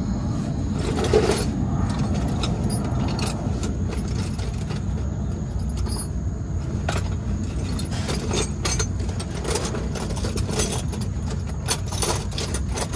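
Metal hand tools and sockets clinking and rattling in quick, irregular clicks, as sockets are handled and dug out of a small tool bag, over a steady low rumble.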